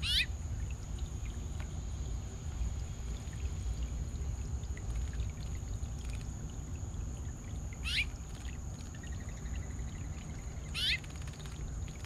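Small solar birdbath fountain spraying and splashing water steadily. A bird gives a short call three times, each sweeping quickly down in pitch: at the start, about eight seconds in, and near eleven seconds.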